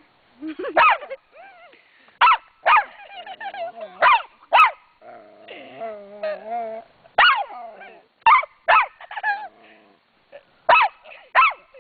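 Small dog barking in sharp, short yaps about ten times, with a longer drawn-out growl around the middle: an angry dog that has been flicked on the nose.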